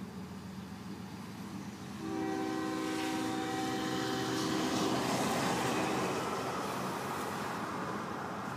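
Diesel locomotive horn, from a GE AC45CCTE leading an intermodal train, sounds one long chord about two seconds in, lasting some two and a half seconds. Under it a low engine drone runs throughout, and the rushing noise of the train and heavy rain swells after the horn and slowly fades.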